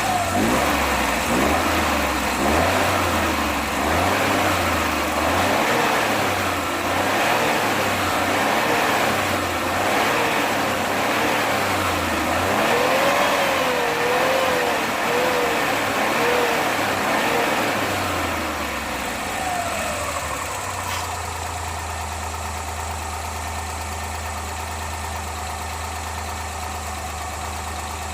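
Suzuki F6A three-cylinder engine running at idle. For the first twenty seconds or so its speed hunts up and down, then it settles into a steady, slightly quieter idle. The hunting comes as the PCV valve is opened slightly.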